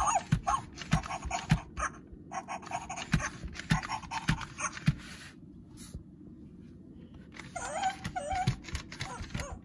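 FurReal Friends JJ My Jumping Pug toy playing its recorded puppy sounds through its speaker while its motor makes it rear and hop, with a run of short thumps through the first half. The puppy sounds stop for a couple of seconds and return near the end.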